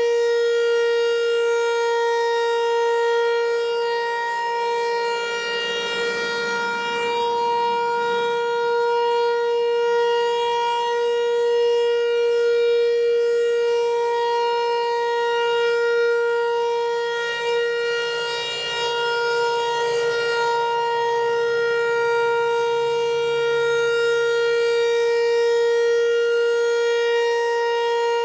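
Federal Signal Equinox outdoor warning siren, its horn's centre cone damaged and misaligned, sounding a steady single-pitch tone during a routine quarterly siren test. The pitch holds without wailing, and the loudness swells and dips slightly.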